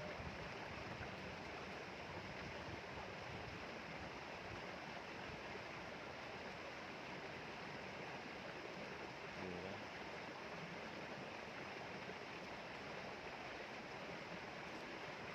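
Steady rushing of flowing water, even and unbroken, with a faint brief voice-like sound about halfway through.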